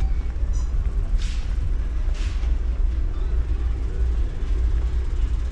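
A low, steady rumble from a camera carried at walking pace, with two short scuffs about a second and two seconds in.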